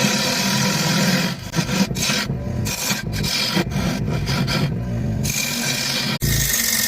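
Wood lathe running as a tool works the spinning walnut plate: a rasping scrape against the wood over a steady motor hum. The scrape breaks off briefly several times, and the sound cuts sharply about six seconds in.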